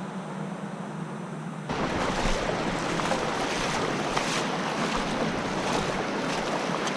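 Steady rush of flowing river water and rapids. It jumps abruptly louder and fuller less than two seconds in.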